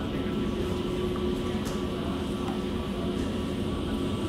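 Steady cabin hum and air rush inside an Airbus A320neo airliner, with a few faint steady tones over an even low rumble.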